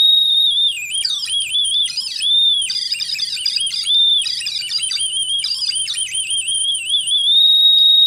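Piezo element driven by an Arduino Uno, sounding a high-pitched tone that swoops down and back up many times as a hand shades and uncovers the photoresistor that sets its pitch. Near the end it climbs and holds a steady high note.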